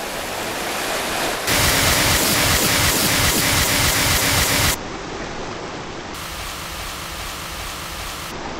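A steady rushing wash of noise, like surf, in edited blocks: it is quieter at first, jumps louder about a second and a half in, then drops abruptly quieter and duller a little past the middle.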